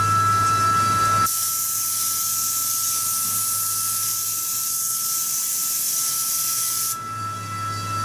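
Compressed-air blow gun hissing as it blows cutting chips off a machined panel. The hiss starts about a second in and cuts off sharply near the end, over a steady hum.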